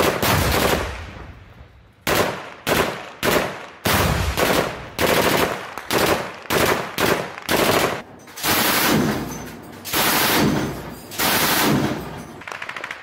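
Heavy gunfire: irregular sharp shots, about two a second, each ringing off, with longer bursts of automatic fire in the second half and a quick, quieter burst near the end.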